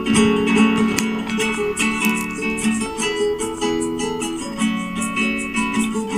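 Instrumental music led by a plucked acoustic guitar, a steady run of picked and strummed notes.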